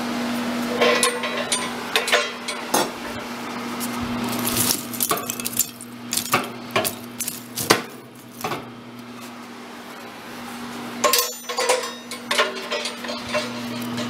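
Iron fireplace tools clanking and clinking against their stand and the wood stove: an irregular string of sharp metallic knocks, with a quieter stretch in the middle and another cluster of clanks near the end.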